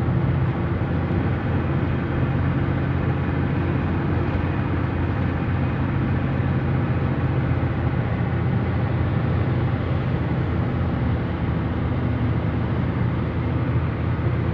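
Road and engine noise heard inside the cabin of a Nissan car cruising on a highway at about 100 km/h: a steady low drone.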